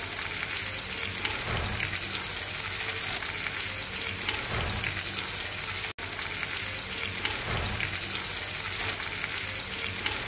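Whole leg of mutton frying in hot oil in a pan: a steady sizzle, cut off for an instant about six seconds in.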